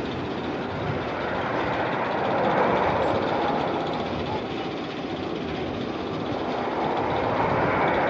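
Steady noise of the X2 steel roller coaster's train running on its track, swelling about two and a half seconds in and again near the end.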